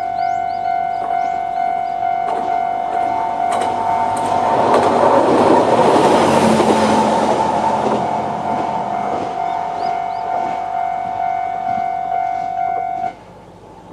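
Japanese level-crossing warning bell ringing in a steady repeated clang while an AN-8800 series diesel railcar passes. The train's engine and wheel noise swells to a peak about six seconds in, with sharp clicks from the wheels, then fades. The bell stops abruptly about thirteen seconds in as the crossing clears.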